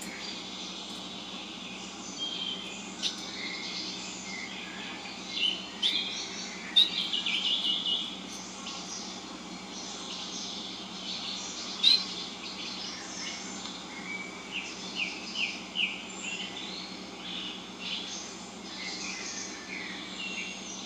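Small birds chirping and calling: pet birds mixed with recorded bird sounds played back. The calls are short chirps throughout, with a rapid trill about seven seconds in and a quick run of short notes around fifteen seconds.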